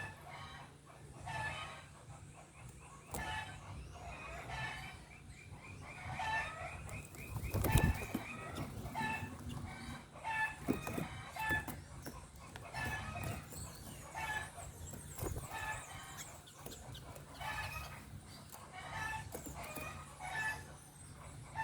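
Birds calling over and over, a short two-pitched call about once a second, with a brief rapid trill around six to seven seconds in. A single sharp thump sounds near eight seconds.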